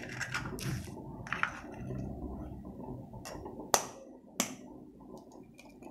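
Eggshell cracking and clicking as an egg is picked and peeled by hand over a bowl: a few quick crackles at the start, then single sharp clicks every second or so, over a low steady hum.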